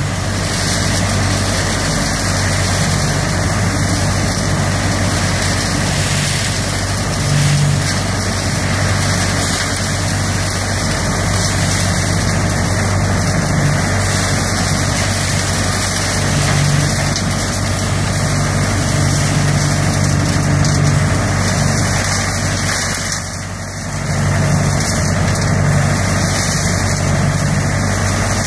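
ODB 650 leaf vacuum running steadily at working speed: a constant engine hum under the rush of air and dry leaves drawn up its intake hose and blown into the truck box. The sound dips briefly once, late on.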